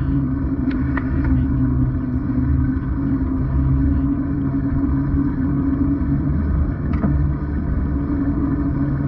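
Steady muffled rumble of wind and road noise heard through a GoPro waterproof case while riding a bicycle, with a few faint clicks.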